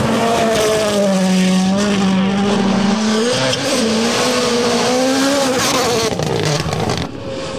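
WRC Rally1 cars' turbocharged 1.6-litre four-cylinder engines running hard at high revs on gravel stages, the pitch holding, then rising and falling with throttle and gear changes, over the hiss of tyres and flying gravel. The sound drops briefly about seven seconds in.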